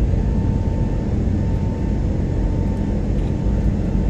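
Steady engine and airflow noise inside an airliner's passenger cabin during the climb after takeoff, with a thin steady whine running through it.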